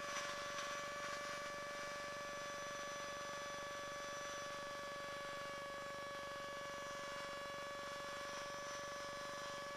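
Challenger II ultralight's engine running at steady cruise power, heard as an even, unchanging whine; its cooling-fan belt has failed and the cylinder-head temperatures are up.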